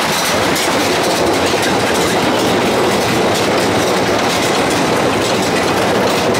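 Small fairground roller coaster under way: a loud, steady rattle and rumble of its cars running along the steel track, with wind noise on the microphone.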